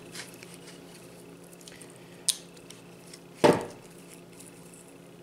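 Small metal-on-metal clicks as pliers squeeze the retention ring into the head of a Craftsman round head fine tooth ratchet: a sharp click about two seconds in and a louder clink about three and a half seconds in, over a faint steady hum.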